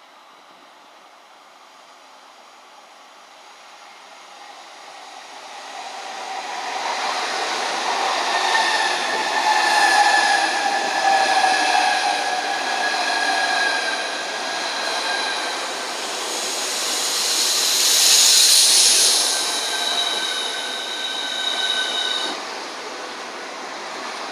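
Southeastern Class 395 electric multiple unit approaching and passing close by. Rail and wheel noise builds from a few seconds in, with several whining tones that fall steadily in pitch, and a loud hiss peaks about three quarters of the way through as the carriages run past.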